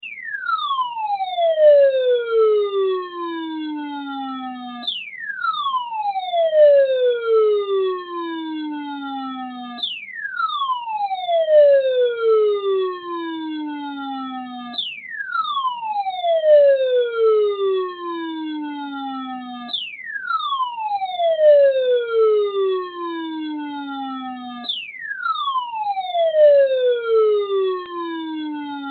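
A siren-like electronic tone that sweeps steadily down in pitch from high to low over about five seconds, then jumps straight back to the top and falls again, repeating about six times.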